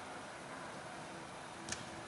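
Quiet room tone of a large indoor sports hall: a faint steady hum and hiss, with one faint, sharp click near the end.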